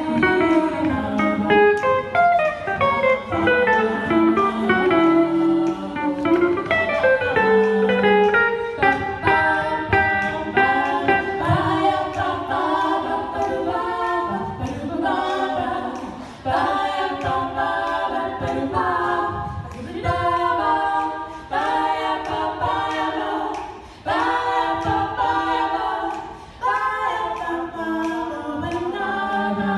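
Three women singing together in close harmony, live, in long phrases broken by short pauses.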